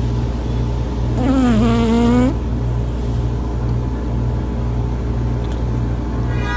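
A sleeping cat snoring: one drawn-out, pitched snore about a second in, dipping and then rising in pitch, over a steady low buzzing hum. A short, higher-pitched note starts right at the end.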